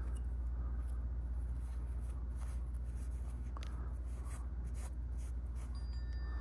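Soft rustling and rubbing of a cleaning wipe being folded in the hands, over a steady low hum.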